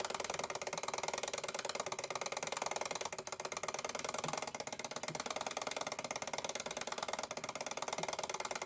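Westclox Big Ben Style 1 alarm ringing: the hammer striking the bell in a rapid, steady rattle.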